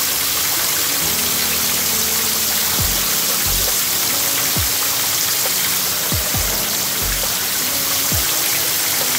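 Background music with sustained low notes and deep drum hits that drop quickly in pitch, coming in about three seconds in and recurring every second or so. Under it runs a steady rushing hiss like flowing water from a small stream.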